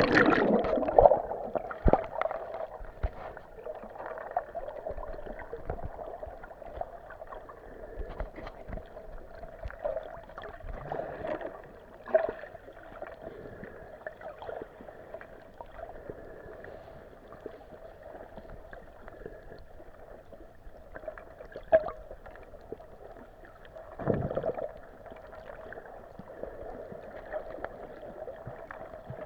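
Muffled underwater ambience picked up by a hand-held camera held under the sea surface: a steady dull hiss and hum with scattered clicks, knocks and gurgles, and a louder gurgling burst near the end.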